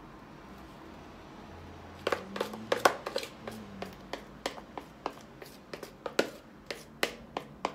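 A kitchen utensil scraping cake batter out of a plastic mixing bowl into a cake pan. After about two seconds of quiet it gives a run of sharp clicks and taps, a few a second, as it knocks and scrapes against the bowl.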